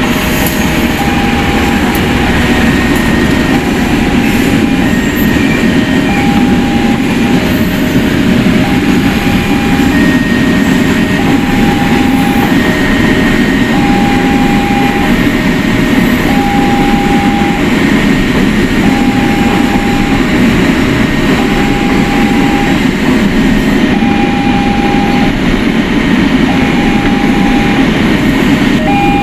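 Railway level-crossing warning alarm sounding a slow alternating high-low electronic tone, over the steady rumble of a train passing through the crossing.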